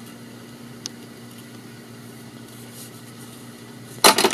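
RCA Victor 9-JY 45 rpm record changer between sides: a faint steady hum with one light tick about a second in. Near the end comes a sudden clatter of loud clicks as the changer starts its change cycle to drop the next record.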